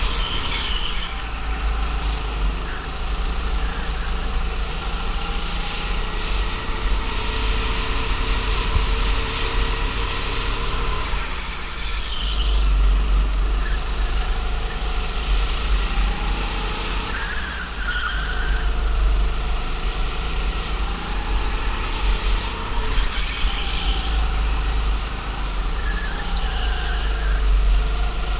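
Onboard sound of a rental go-kart engine running on a lap, its pitch rising and falling with the throttle, over a heavy low rumble. Several brief high squeals, likely the tyres, come in the corners.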